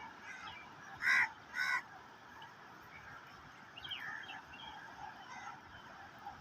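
Birds calling: scattered short chirps throughout, with two loud honking calls in quick succession about a second in.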